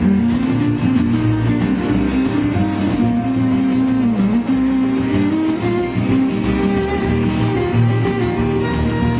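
Live acoustic string band playing a passage with no singing: strummed acoustic guitar, picked banjo, upright double bass and bowed fiddle, with sustained notes that slide in pitch about four seconds in.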